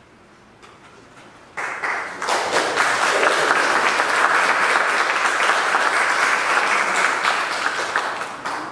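Congregation applauding. The clapping breaks out about a second and a half in, holds steady, and dies away near the end.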